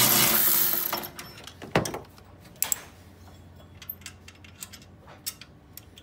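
Metal hand tools and a bolt clinking and scraping as a loosened lower alternator bolt is backed out and removed. A loud, rough scraping rustle fills the first second and fades, then comes a sharp metallic click a little under two seconds in, another soon after, and scattered lighter clicks.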